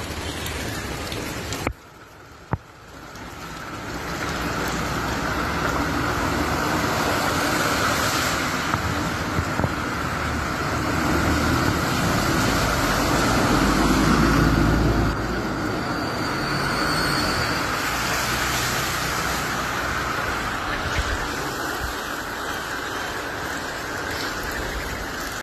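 Steady rushing noise of floodwater running along a street. Around the middle, a vehicle drives through the water: its engine rumble and the splash of its wash rise to the loudest part, then fade.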